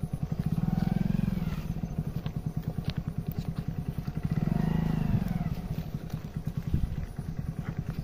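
Motorcycle engine running at low revs with a steady, rapid pulse, swelling louder twice, about a second in and again about five seconds in.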